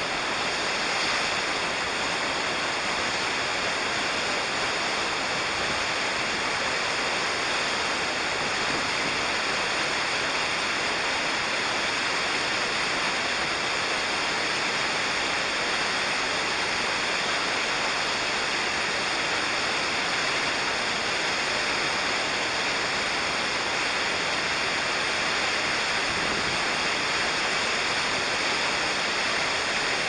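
Waterfall rushing: a steady, unbroken wash of falling water, with no change through the whole stretch.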